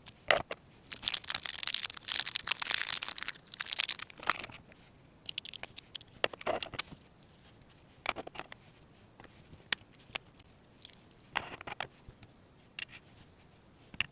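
Small plastic miniature toy pieces being handled: a few seconds of crinkling and rustling, then scattered light clicks and taps.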